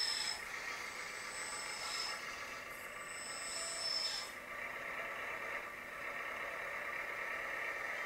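Sound module of a LESU 1/14 RC 6MDX dumper playing a steady engine-running sound, with a reversing beeper sounding roughly every two seconds that stops about four seconds in.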